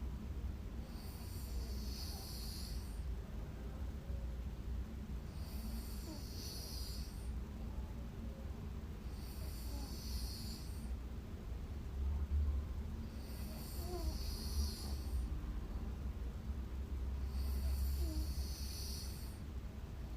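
A sleeping woman snoring in a slow, steady rhythm, with a hissy breath about every four seconds, five in all.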